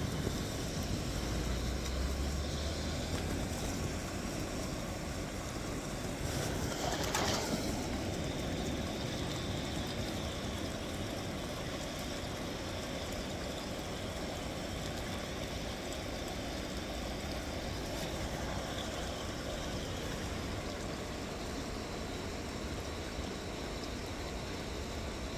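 Steady outdoor background noise, with a low rumble early on and one brief swell of noise about seven seconds in.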